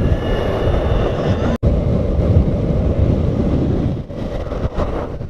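Steady wind noise on the microphone and road rumble while riding an electric skateboard, with a brief cut-out about one and a half seconds in.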